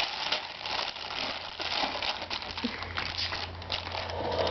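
Plastic baby-wipes package being crinkled and crumpled by a baby's hands, a continuous run of irregular crackles.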